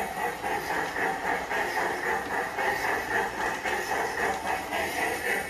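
PIKO G-scale model steam locomotive and coaches running round the track loop: a steady rolling rattle of wheels and motor that pulses a few times a second.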